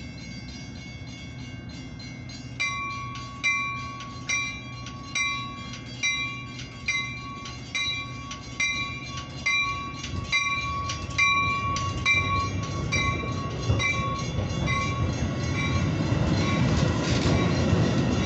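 Railroad crossing bell ringing a little less than once a second while a Metra commuter train pulls away past it. The rumble of the bilevel cars rolling on the rails grows louder as the bell fades in the second half.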